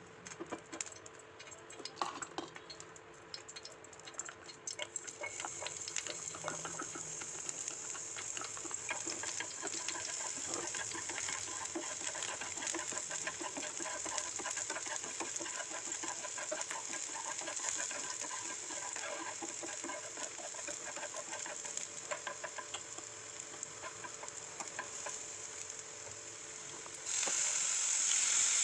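Food frying in a pan: a few clicks and taps at first, then steady sizzling and crackling from about five seconds in that jumps suddenly louder near the end.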